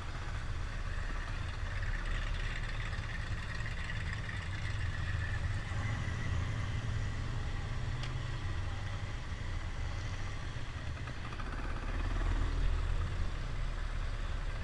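Single-cylinder four-stroke engine of a 1974 Honda XL250 motorcycle running steadily at low speed. The deep rumble swells louder about twelve seconds in.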